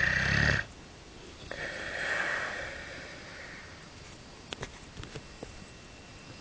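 A Dogue de Bordeaux snoring and breathing heavily in its sleep. A loud snore at the start cuts off sharply within the first second, and a long breathy snore follows about 1.5 to 3.5 seconds in. A few faint clicks come near the middle.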